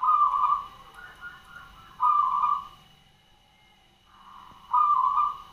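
Zebra dove (perkutut, Javanese turtledove) cooing its staccato song: three loud coo phrases about two seconds apart, with softer rolling notes between them.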